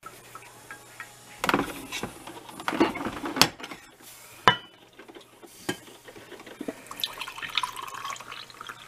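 Glass coffee carafe lifted out of a drip coffee maker with several sharp clinks and knocks. Near the end, coffee is poured into a mug, a pouring sound that rises in pitch as the mug fills.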